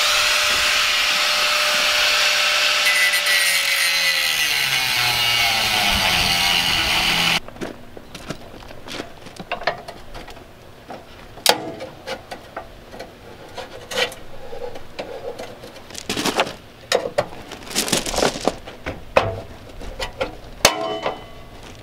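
Angle grinder grinding through the small welds that hold a steel mounting plate, a loud harsh grind whose pitch sags about four seconds in; it stops abruptly about seven seconds in. After it come scattered metal knocks and scraping.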